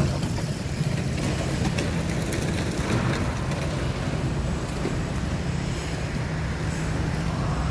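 Road traffic: a steady low engine hum under tyre and road noise, with a motorcycle passing close at the start and another swell of passing-vehicle noise about three seconds in.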